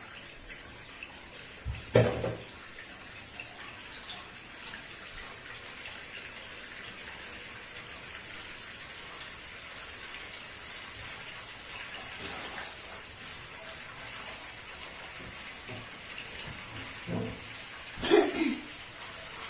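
Bathtub tap running, a thin stream of water splashing steadily into the tub. A loud knock about two seconds in and a few more thumps near the end.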